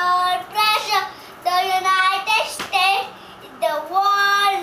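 A young boy singing, holding long steady notes of about a second each with short breaks between them.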